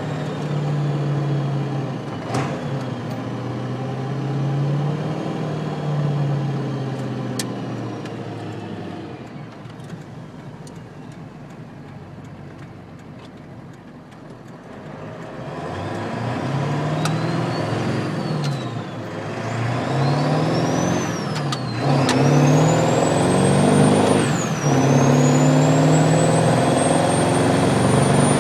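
Ford Power Stroke turbo-diesel truck engine running, quieter for a stretch and then accelerating, with a loud high turbo whistle from its polished turbo housing that rises with each pull and falls sharply when the throttle lets off, several times over.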